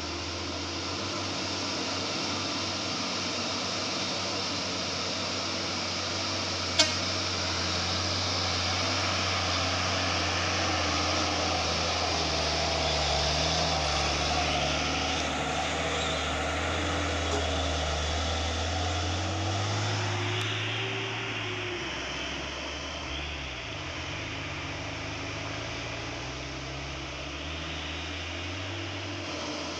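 Diesel engines of heavy Hino 500 trucks labouring steadily up a steep gravel climb, one passing close by. There is a single sharp knock about seven seconds in, and the engine note rises and then drops about two-thirds of the way through.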